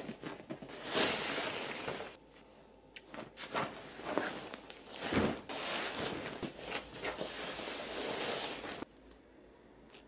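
Fabric rustling and swishing as a feather-filled sofa seat cushion insert is pulled out of its zippered cotton cover and pushed about, in irregular bursts that stop about nine seconds in.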